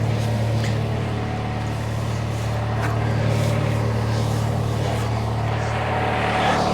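Tractor engine running steadily at a constant speed, with a few faint clicks over it.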